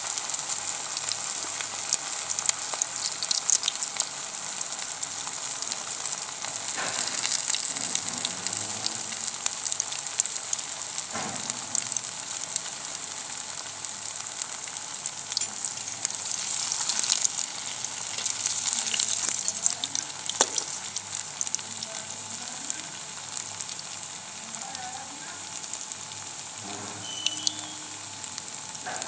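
Vegetable Manchurian balls deep-frying in hot refined oil in a kadhai: a steady high sizzle with scattered pops and crackles, settling a little in the second half as the balls brown.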